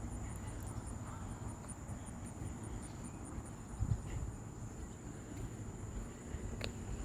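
Crickets chirping: a steady high trill with evenly repeated high chirps a few times a second, over a low rumble, with one sharp click near the end.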